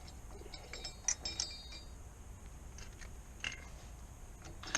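A few light metallic clinks of tools and metal parts being handled, bunched about a second in, with a fainter clink later, over a low steady hum.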